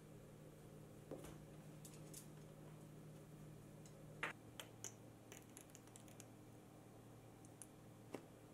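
Quiet kitchen handling sounds: scattered light clicks and taps of utensils and glassware over a faint steady low hum. The loudest tap comes about four seconds in, as mayonnaise is piped from a bag into a small glass bowl.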